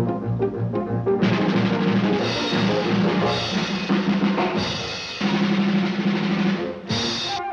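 Cartoon orchestral score dominated by percussion. A fast run of low drum beats gives way to loud drum rolls over a held low note, which stop and restart several times.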